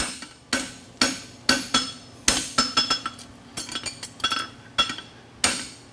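Hand hammer striking a red-hot steel bar on an anvil, about two blows a second, each with a short metallic ring. The farrier is forging material into the toe of a draft horseshoe.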